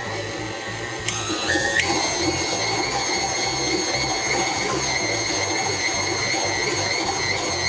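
Electric stand mixer running as it beats flour into shortbread cookie dough. Its motor whine steps up in pitch twice in the first two seconds as the speed is raised, then holds steady over a low hum.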